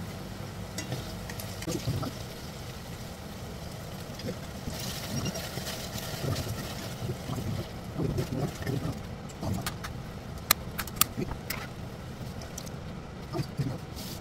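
Kitchen handling noises over a steady low hum: a stretch of rustling about five seconds in, then scattered light clicks and knocks about ten seconds in as packets and containers are handled on the counter.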